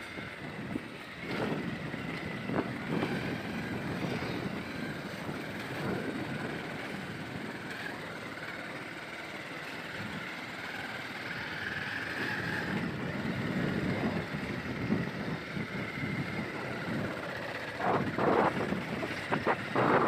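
Motorcycle running along a rough gravel road, its engine mixed with wind on the microphone, with a few louder knocks near the end.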